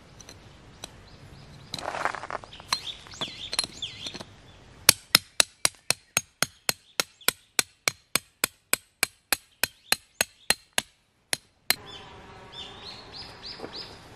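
Tent pegs being hammered into the ground while a pup tent is pitched: a quick run of even, sharp strikes, about four a second for five or six seconds, then two single blows.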